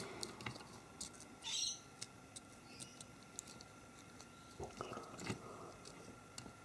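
Faint scattered clicks and taps of small metal parts being handled as a tiny pin is worked into the bucket linkage of a 1:50 scale diecast excavator, with a brief high squeak about a second and a half in.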